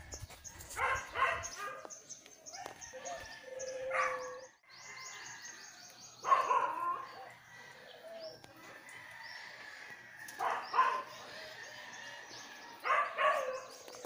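A dog barking in short groups of one to three barks every few seconds, the loudest about six seconds in.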